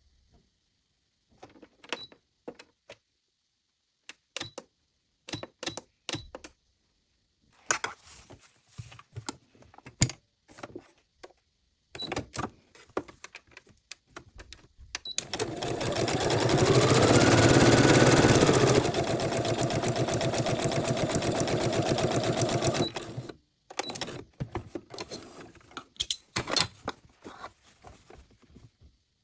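Electric sewing machine: scattered clicks and knocks as its parts are handled, then the motor starts about halfway through. It speeds up with a rising whine, runs steadily for several seconds and stops abruptly, followed by more clicks.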